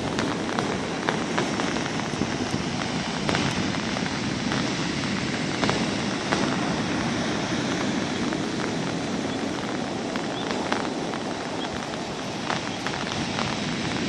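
Steady wash of heavy, near-storm surf breaking on a Black Sea beach, with scattered short sharp ticks through it.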